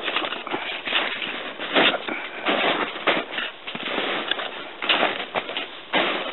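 Footsteps crunching and breaking through crusted snow, an uneven run of crisp crunches several times a second.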